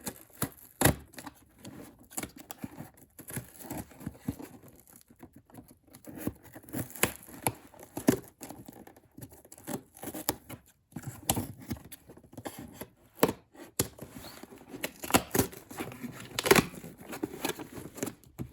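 A cardboard shipping box being opened by hand: packing tape tearing, with irregular scrapes, rustles and knocks as the box is handled.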